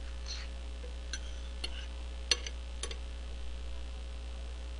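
Smartphone being handled: about five light clicks and taps over two and a half seconds, the loudest about halfway through, over a steady low mains hum.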